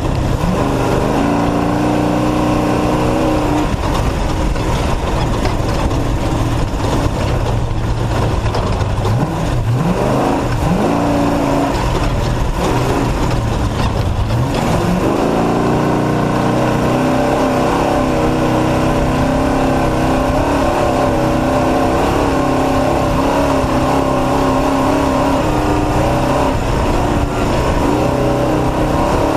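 Off-road race truck's engine running hard at high revs, over a steady rush of noise. Its pitch drops and climbs back up about nine seconds in and again about fourteen seconds in.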